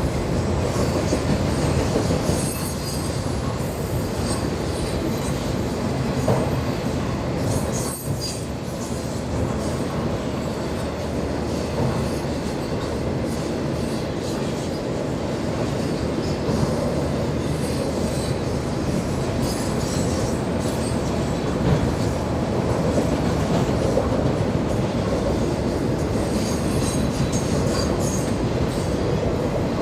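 Freight train rolling steadily past, its wheels clattering over the rail joints with scattered high squeals.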